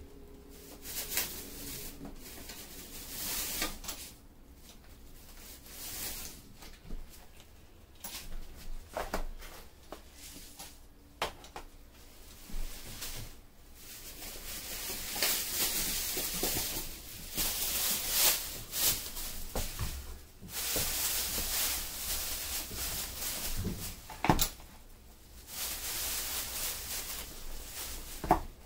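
Plastic shopping bag rustling in repeated bursts as groceries are lifted out, with light knocks of packets and bottles being set down on a tile floor.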